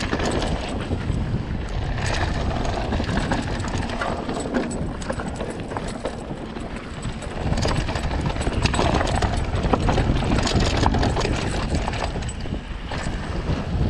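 Mountain bike riding downhill over a loose dirt and stony trail: tyres crunching over gravel and the bike rattling with many small knocks, over a steady rush of wind on the microphone.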